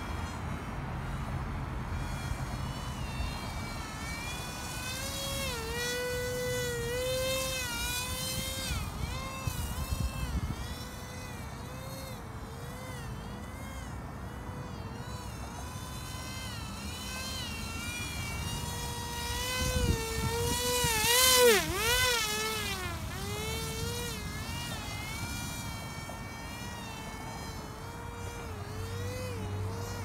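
Small brushless electric motor (DX2205 2300KV) and propeller of a radio-controlled paramotor buzzing in flight, its pitch wavering up and down as the throttle changes. About 21 seconds in it gets loudest, with a sudden dip in pitch.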